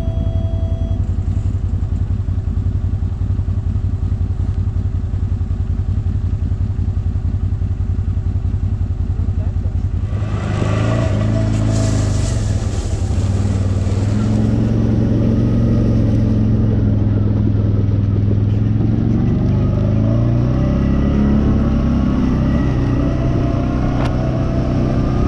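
ATV engine running under way, with an even low pulse. About ten seconds in it gets louder, with a rush of wind noise, and the engine pitch rises and falls with changes in speed.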